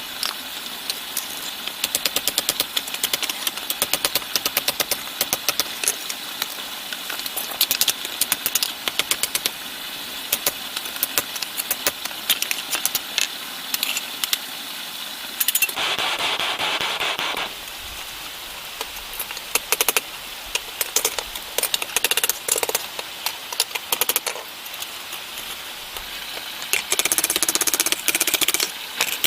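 Rapid, irregular knocking and clicking from primitive blacksmithing work, with a short burst of hissing about sixteen seconds in and another near the end.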